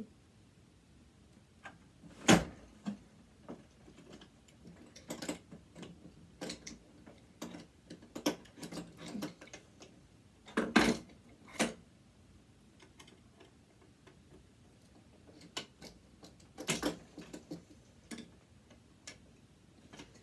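Small metal parts and hand tools clicking and clinking at irregular intervals as an oily mechanism is taken apart by hand, with a few louder knocks.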